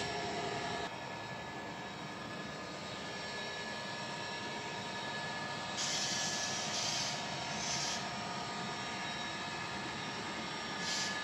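Sound of an 00 gauge model diesel locomotive from its DCC sound decoder: a steady diesel engine drone through a small speaker, with several short hissy bursts from about six seconds in.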